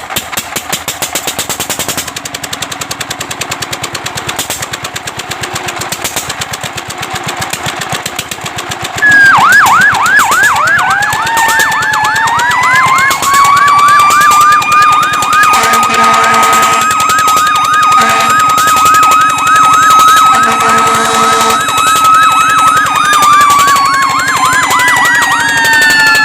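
Fire truck sirens. After about nine seconds of fast pulsing noise, a loud siren starts suddenly with a rapid repeating yelp. A second siren winds up alongside it, holds a steady wail, and begins to fall in pitch near the end. Twice around the middle a lower pulsing tone sounds over them.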